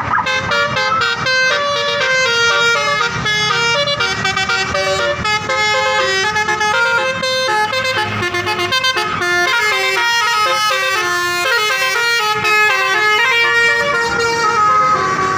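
Bus 'telolet' basuri horn, a multi-tone musical air horn playing a fast melody of stepped notes, with a bus engine running underneath.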